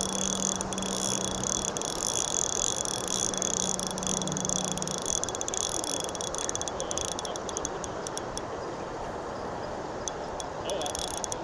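Steady rush of flowing river water, with a low steady hum over the first five seconds or so and scattered light ticks near the end.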